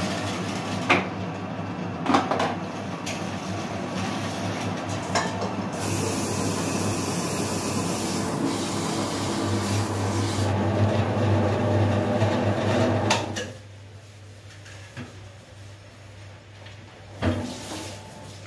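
Belt-driven industrial dough mixer running with a steady hum and occasional metal knocks as it works a batch of wonton dough. It shuts off about thirteen seconds in, and a metal clank follows near the end.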